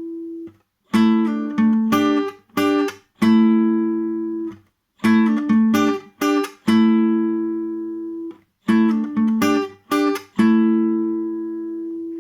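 Guitar played clean with hybrid picking: two strings plucked together in a pinch by pick and middle finger, in a repeating riff. Clusters of short, damped notes with slurred pitch changes from pull-offs alternate with a long ringing two-note chord that fades, about three times over.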